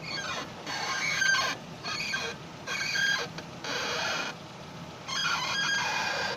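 Datsun on-DO suspension squeaking, a series of about six high creaks each lasting under a second with short pauses between: the squeak of a worn ball joint.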